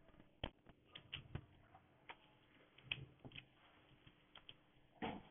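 Faint, irregular keystroke clicks on a computer keyboard as a password is typed one key at a time, with a short soft sound near the end.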